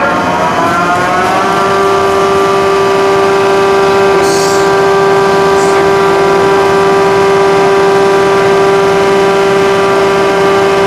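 Ship's whistle of the Seikan ferry Hakkoda Maru sounding one long blast: several tones together that rise in pitch over the first second or so and then hold steady. It is typical of a ferry's departure signal.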